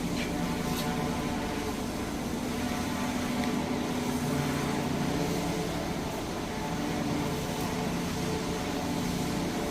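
Steady low drone of a vehicle's engine running in city traffic, holding an even pitch.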